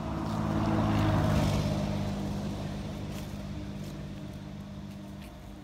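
A motor vehicle passing by: its engine grows louder to a peak about a second in, then fades away slowly.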